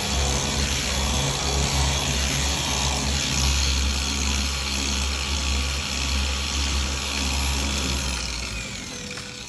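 Handheld power tool running steadily, its motor winding down near the end.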